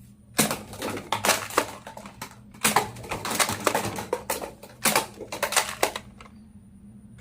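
Plastic clicks and clacks from a toy Nerf Elite blaster being worked and fired. They come in quick, irregular runs, with a short pause near the end.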